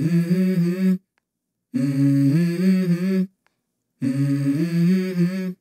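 Background music: a wordless hummed vocal melody in three short phrases, stepping up and down in pitch, with brief silences between them.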